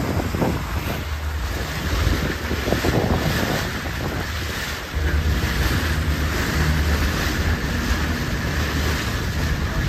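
Boat engine running under way, with wind buffeting the microphone and water rushing along the hull. The engine's low hum gets louder about five seconds in.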